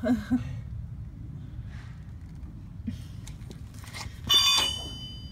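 A few faint clicks, then about four seconds in a sharp metal-on-metal clank from a steel tool on the brake caliper, which rings on with a high, bell-like tone.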